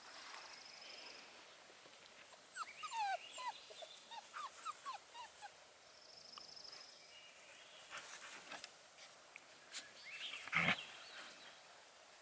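Bordoodle puppies whining and yipping: a quick string of short, high, falling cries for about three seconds, then one louder cry near the end.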